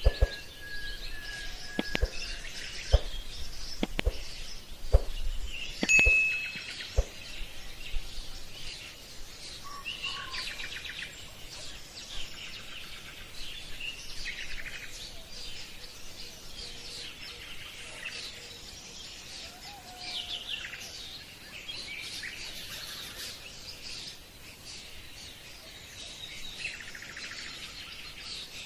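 Small birds chirping and trilling continuously against a faint outdoor hiss. About one sharp tap or knock a second breaks in during the first seven seconds.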